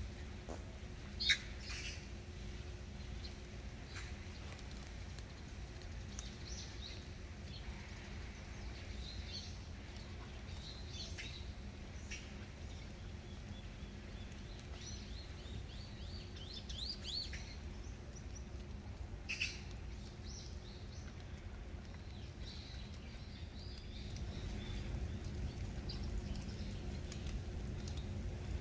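Outdoor ambience of scattered bird chirps over a steady low rumble, with a sharp chirp about a second in, another near 19 seconds, and a quick run of calls a little past the middle.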